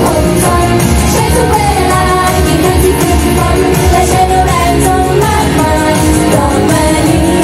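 Pop song with singing over a steady beat, playing loud and unbroken.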